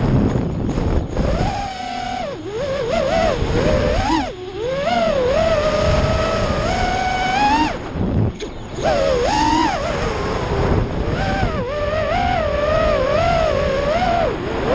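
Brushless motors and propellers of a QAV SX FPV freestyle quadcopter whining, heard from its onboard camera, the pitch rising and falling with the throttle and dropping away briefly a few times: near the start, about four seconds in, and around eight seconds in. Wind rushes over the microphone throughout.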